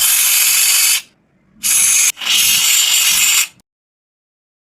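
Three loud hissing blasts from a pressurised spray jet: a long one, a short one, then a longer one. Each cuts off sharply.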